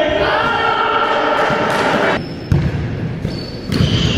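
Basketball bouncing on a sports-hall floor amid the noise of an indoor pickup game, with a sharp thud about two and a half seconds in.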